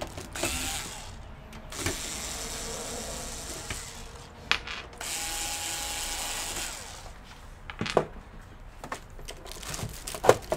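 Small electric screwdriver whirring in three short runs as it backs out the rear screw of a ThinkCentre M720S desktop case. A few sharp knocks follow as the metal cover is pushed and slid off.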